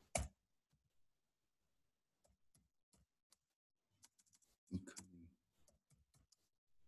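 Faint computer keyboard typing: scattered single keystroke clicks, with a louder cluster about five seconds in.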